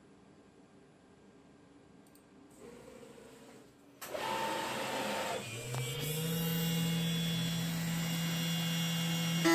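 Quiet at first with a few faint clicks. About four seconds in a loud hiss starts suddenly, then the DIY CNC mill's spindle spins up with a rising whine and settles into a steady hum, running at 10,000 RPM with a 10 mm two-flute end mill.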